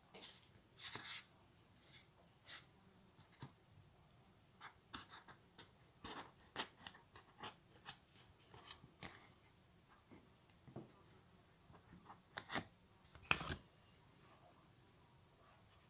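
Faint handling noises as a sheet of craft foam is cut into a strip and rubbed between fingers: scattered short clicks and scratches with quiet gaps, the sharpest click about thirteen seconds in.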